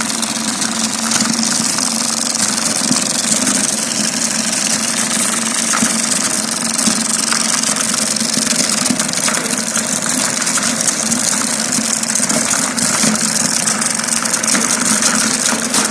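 Homemade grinding mill driven by a washing-machine motor, running steadily: a constant hum under a loud, even hiss.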